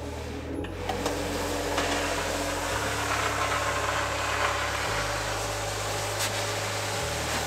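A third-generation Cricut cutting machine's feed rollers draw a long sheet of Smart Vinyl through without a mat, making a steady motor whir as the machine checks that the material is long enough to cut.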